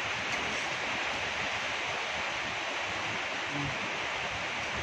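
Steady, even hiss of heavy rain.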